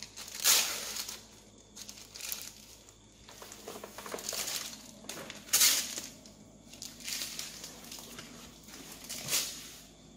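Plastic ice-cream bar wrapper crinkling in repeated irregular bursts as it is peeled off the bar.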